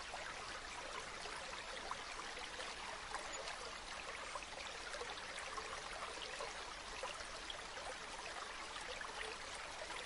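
Bamboo water fountain: a steady trickle of water falling from the spout into a pool, with many small splashes and drips.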